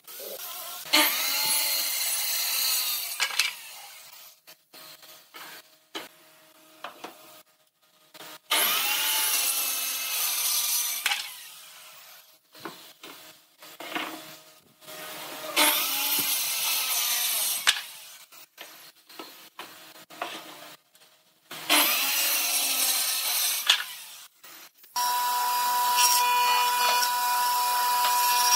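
Handheld electric circular saw cutting wooden boards in four short cuts of about two seconds each, each one starting suddenly and fading as the blade winds down. Near the end a jointer starts and runs steadily, with a constant hum.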